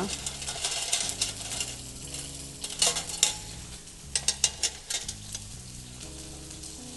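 Mackerel fillets frying skin-side down in hot olive oil, sizzling steadily as the skin crisps and the fish gives off its fat. Sharp clicks and taps come in two short clusters, about three seconds and four and a half seconds in.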